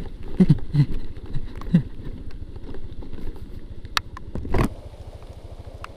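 Motorcycle engine running with a steady low throb, likely idling. About four and a half seconds in there is one brief loud knock.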